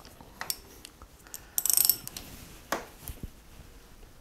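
Socket ratchet clicking as the front brake caliper's mounting bolts are undone: a few separate clicks and one louder quick run of clicks a little before two seconds in.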